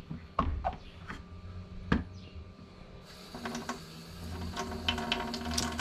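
A knife and fish being handled in a stainless-steel sink: a few separate sharp clicks and knocks, then a steady low hum with more small clicks from about three seconds in.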